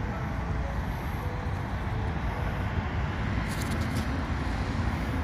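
Steady low rumble of road traffic, with a few faint high clicks about three and a half seconds in.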